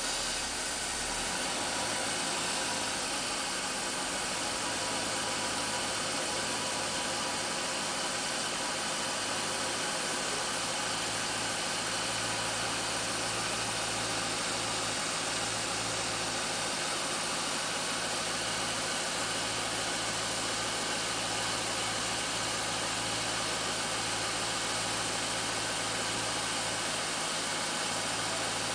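Cadillac's LS-series V8 engine idling steadily under the open hood: an even low hum with a broad hiss over it, unchanging throughout.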